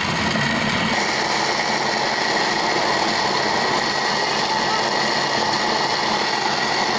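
Panasonic countertop blender running steadily at full speed, its motor whirring with a steady hum as it grinds a wet spice paste of chillies and shallots smooth.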